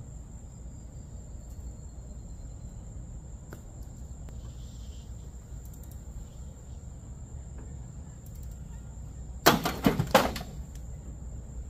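Crickets trilling steadily in the background; near the end, a quick cluster of sharp metal clanks from hand tools working the hood hinge bolts of a 1964 Oldsmobile Jetstar 1.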